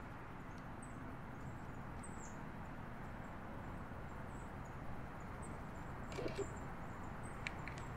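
Quiet outdoor ambience: a steady low hiss with faint, short high bird chirps scattered throughout, and a few soft clicks near the end.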